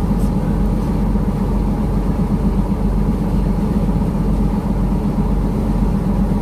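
Twin Scania straight-six diesel engines of a catamaran running at a steady pace, a constant low drone with no change in speed.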